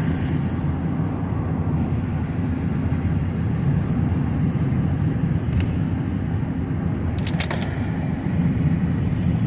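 Steady low rumble of a car driving, road and engine noise heard inside the cabin, with a few short clicks about halfway through and again a couple of seconds later.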